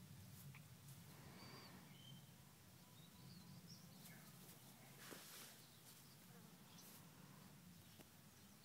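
Near silence: a faint steady low hum with a few soft ticks and a brief soft rustle about five seconds in.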